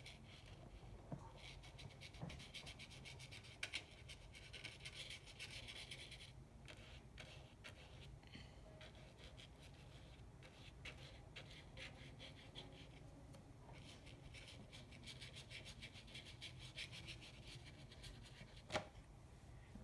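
Faint rubbing and scratching of a thin paintbrush working gray watercolour paint onto paper, in soft stretches with small ticks. There is one sharper tick near the end.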